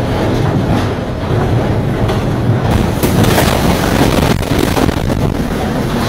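Loud, steady rush of storm wind buffeting the phone's microphone, with a heavy low rumble.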